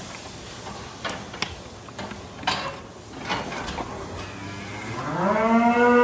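Holstein cow mooing: one long call that rises in pitch and then holds, starting about five seconds in. Before it, a few light knocks.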